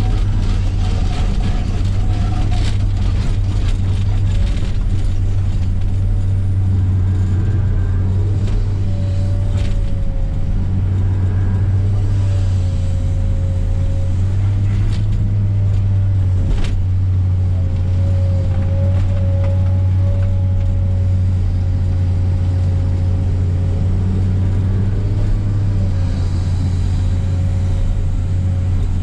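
Heavy earthmoving machine's diesel engine running steadily and heard close, with a wavering whine above the engine hum and a few sharp knocks.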